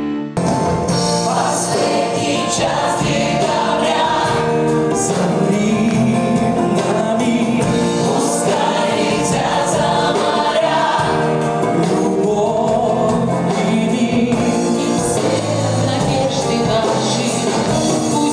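Mixed male and female voices singing a Russian pop song together, with acoustic guitar and band backing; the song cuts in abruptly right at the start.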